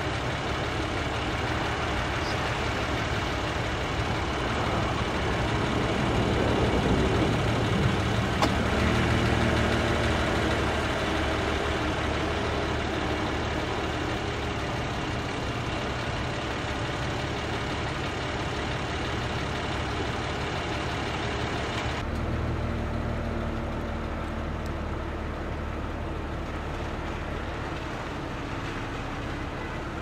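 Steady motor-vehicle engine and traffic noise with a low hum, swelling louder about six to ten seconds in and shifting abruptly about two-thirds of the way through.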